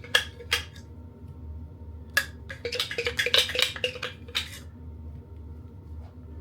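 Kitchen dishes and utensils knocking and clattering: a couple of sharp clinks in the first second, then a busy run of clatter from about two seconds in that stops about four and a half seconds in.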